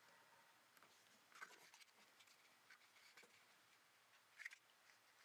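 Near silence, with a few faint brief taps and rustles of the small wooden walls of an HO-scale station kit being handled and fitted together by hand.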